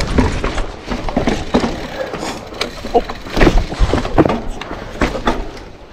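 Mountain bike clattering over rough trail: irregular knocks and rattles as it hits rocks and roots, some of them sharp and loud.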